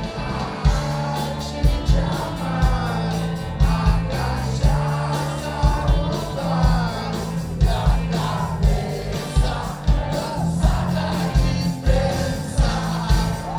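Rock band playing live: electric guitars, bass and a steady, heavy drum beat under a male singer. The sound is bass-heavy and boomy, heard from among the audience.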